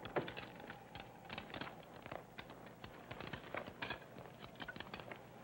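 Hurried footsteps of several people crunching through snow, an uneven patter of crunches several times a second. Under them is the steady hiss and hum of an old VHS recording of a TV broadcast.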